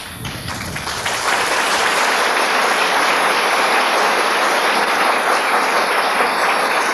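Audience applauding. The clapping swells over about the first second, then holds steady and loud.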